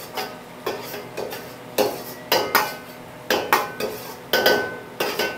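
A metal utensil knocking and scraping against a cooking pan while the sauce mixture is stirred, with irregular clinks about two to three a second, each ringing briefly.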